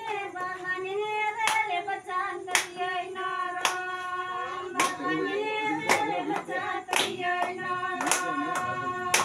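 A group of women singing together in sustained, held notes, with sharp hand claps keeping a steady beat about once a second.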